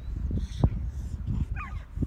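A young puppy giving a short, high-pitched whine about one and a half seconds in.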